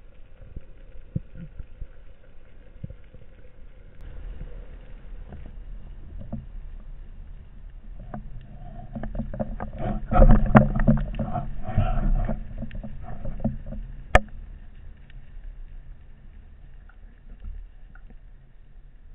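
Underwater sound of a freediver descending with a speargun-mounted camera: low water rushing with scattered knocks and clicks. It swells into a louder stretch of rushing and dense clicking around the middle, with one sharp click a few seconds later, then settles back down.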